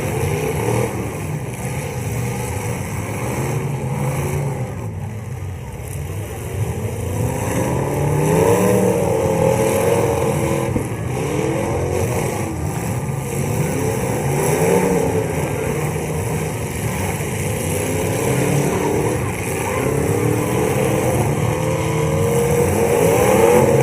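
Several full-size demolition derby cars' engines revving hard, their pitch rising and falling again and again as the cars accelerate and back off.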